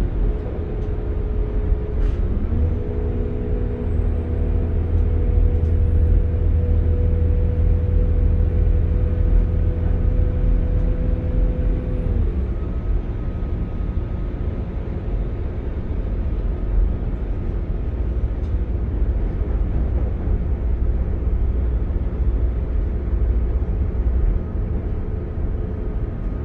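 Saloon noise of a Northern Class 195 diesel multiple unit running at speed: a steady low rumble of the underfloor diesel engines and wheels on the track. About two and a half seconds in, a droning engine note rises in pitch and holds, then drops away again about twelve seconds in.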